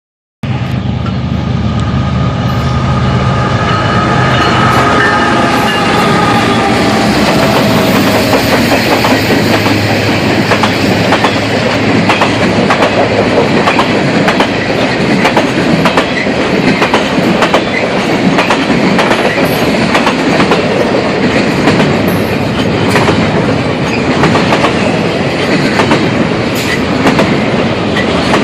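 CSX intermodal freight train passing close by. Locomotive diesel engines drone with a high whine that slowly falls in pitch over the first several seconds, then the cars go by with a steady rumble and the clickety-clack of wheels over rail joints.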